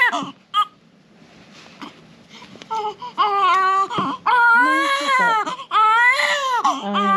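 Newborn baby crying while being dressed: one cry ends at the start and is followed by a short squeak, a near lull with faint whimpers, then long wails that rise and fall from about three seconds in.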